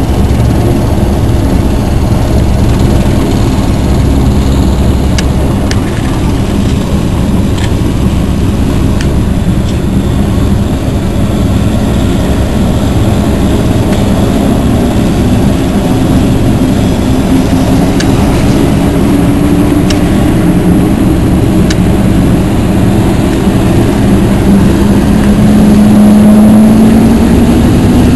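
Helicopter starting up: the engine and rotor run loud and steady, and a whine climbs in pitch over the last few seconds as it spools up.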